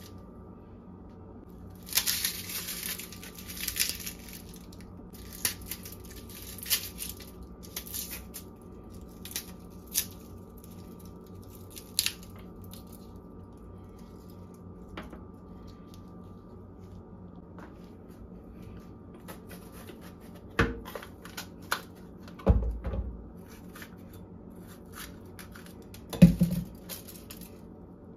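Dry, papery garlic skins crackling and tearing as cloves are peeled by hand, in scattered bursts through the first dozen seconds. Later come a few dull thumps, the loudest near the end, over a faint steady hum.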